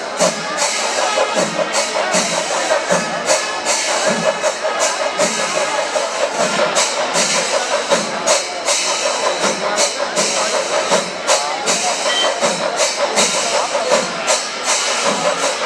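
Kerala temple festival percussion ensemble playing: a steady, fast rhythm of drum and cymbal strokes, with a wavering sustained wind-instrument tone over it.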